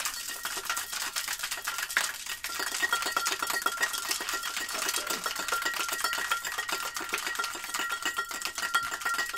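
Metal cocktail shaker tin shaken hard with one or two large ice cubes inside: ice rattling and knocking against the metal in a fast, unbroken rattle. This is the wet shake of an egg-white fizz, with the ice as an agitator to build the foam.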